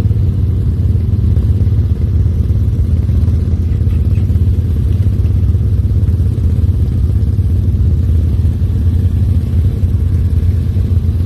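ATV engines running at idle, a steady low rumble with no revving.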